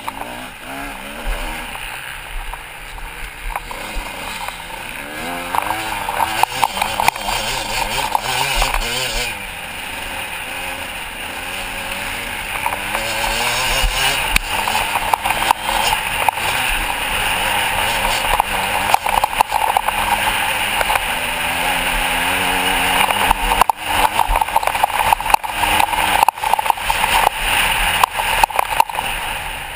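Motocross bike engine heard from the rider's helmet camera, revving up and dropping again and again as it is ridden hard round a dirt track, with wind noise over the microphone and frequent knocks from the bike over bumps, most of them near the end.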